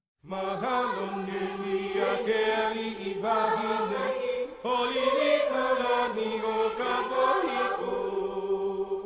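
Background music with sustained, chant-like singing voices over a steady low drone, starting a moment in.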